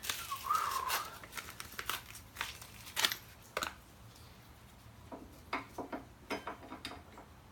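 Irregular metallic clicks, taps and scrapes as a brake pad is pushed and wiggled into a 2017 Indian Chieftain's brake caliper. The clicks are busiest in the first second and again around three seconds in, then sparser.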